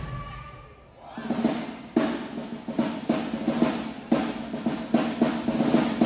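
Marching band drumline playing a cadence: snare drum rolls and strokes with bass drum accents about once a second. It starts about a second in as the band's previous tune dies away.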